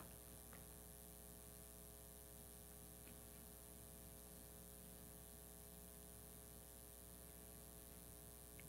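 Near silence: a faint steady electrical mains hum with light hiss, with a couple of very faint ticks.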